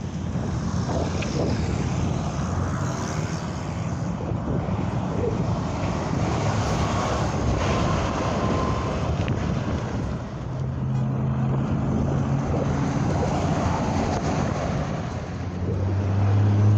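Highway traffic going by: steady tyre and engine noise of trucks and cars, with a truck's low engine drone growing louder near the end.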